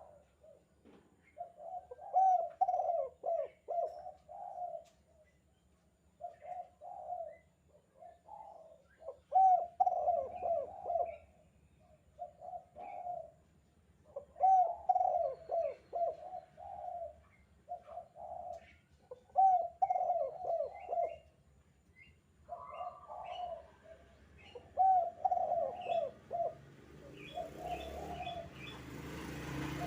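Spotted dove (tekukur) cooing its 'kuk 2' call, phrase after phrase of several throaty coos every few seconds. Faint higher chirps sound in between, and a rising rush of noise comes in near the end.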